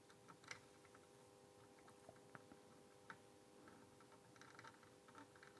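Near silence: faint room tone with a low steady hum and scattered soft ticks and clicks, a few more of them clustered near the end.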